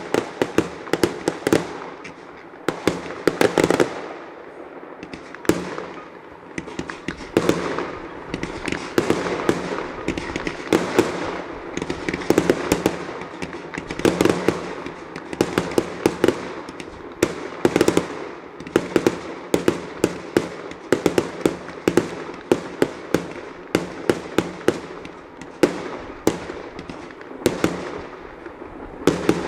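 Fireworks going off in a continuous barrage: sharp bangs and crackles several times a second, with no break.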